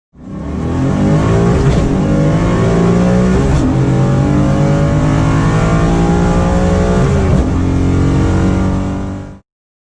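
Mustang's Coyote 5.0 V8 at full throttle, pulling hard through the gears of the T-56 manual gearbox: the engine note climbs in pitch between three quick upshifts, about two, three and a half, and seven and a half seconds in. It cuts off abruptly near the end.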